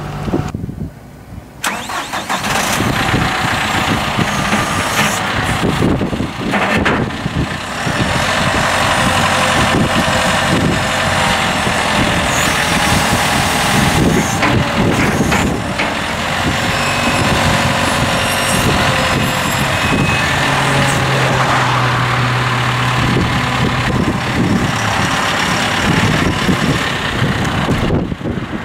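John Deere 5100M tractor's turbocharged four-cylinder diesel engine running steadily while the front loader is raised and lowered. The sound grows louder about two seconds in after a brief quieter moment.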